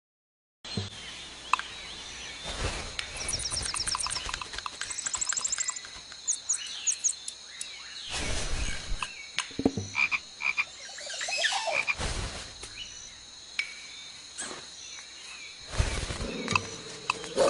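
Added sound effects: rapid croaking trills like a frog's, mixed with assorted clicks, knocks and thumps over a steady high-pitched tone.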